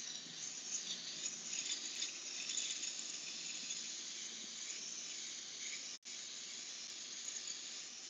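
Iwata Eclipse airbrush hissing steadily as it sprays paint, cutting out for an instant about six seconds in.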